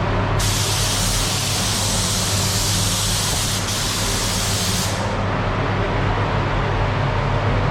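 Paint spray gun hissing in one long pass from about half a second in to about five seconds, with a brief break partway, over a steady low hum.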